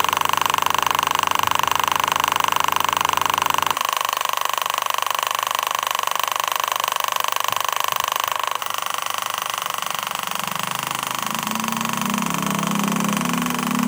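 A motor-driven workshop machine running with a steady high whine and a rapid pulse. The sound changes abruptly twice, and a lower hum joins in near the end.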